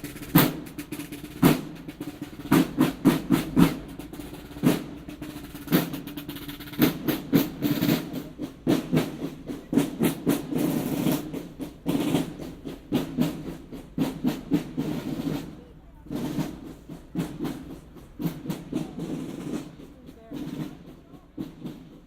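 Snare drums of a boys' marching band playing a march beat with rolls, growing fainter over the last several seconds.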